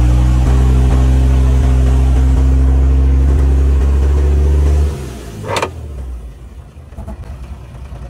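Heavy diesel engine running loud at high revs, then dropping sharply to a low, quieter run about five seconds in, with a brief sharp sound just after the drop.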